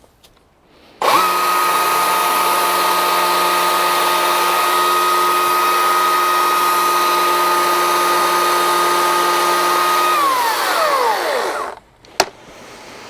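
EGO CS2005 20-inch cordless chainsaw's brushless electric motor and chain spinning up sharply, running free at a steady high whine, then winding down in pitch and stopping as the trigger is released. A single sharp click follows.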